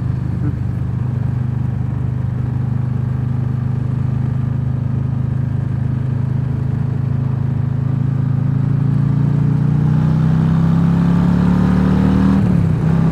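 Harley-Davidson V-twin motorcycle engine running steadily under way with wind noise. Its note rises slowly through the second half as the bike accelerates, then drops about twelve seconds in at a gear change.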